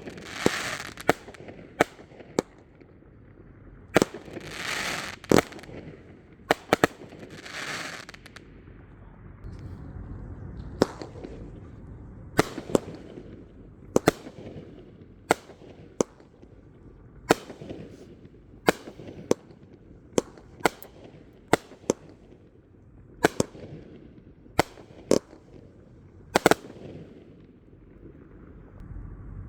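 Consumer fireworks going off: a string of sharp bangs, roughly one a second, with three longer hissing bursts in the first eight seconds.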